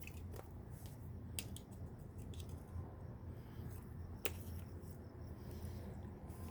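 Scattered faint sharp clicks and ticks, the loudest about four seconds in, over a steady low hum.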